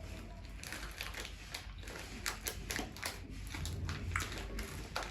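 Close-up mouth sounds of someone chewing a blueberry jelly bean: irregular wet clicks and smacks, several a second.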